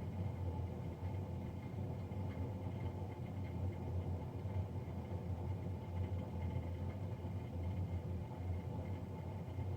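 Fan of a Navien NCB-240 combi boiler running loudly, a steady low rumbling hum with faint steady whining tones above it.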